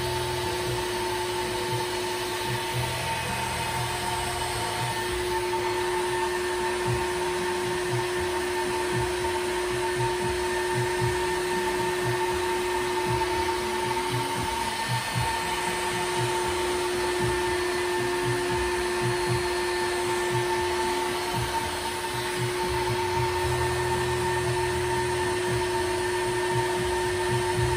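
Corded electric drill running at a steady speed with a continuous motor whine, its chuck turning a threaded rod. The whine dips briefly about halfway through.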